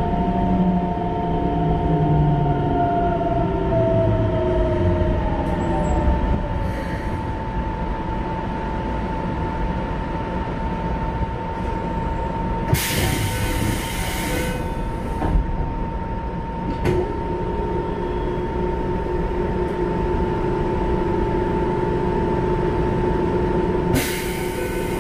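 Keikyu 1500-series electric train heard from inside a motor car. Its Mitsubishi GTO-VVVF inverter gives a cluster of tones that shift in pitch over the first few seconds, over the steady rumble of the running train, with a constant high tone throughout. Two bursts of hiss come about halfway through and near the end.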